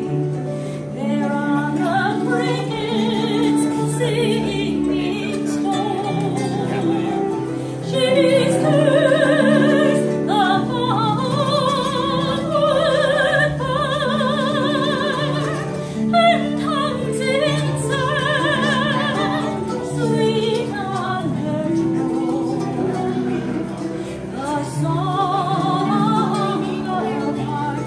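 Soprano singing with wide vibrato over plucked harp, mandolin and acoustic guitar accompaniment.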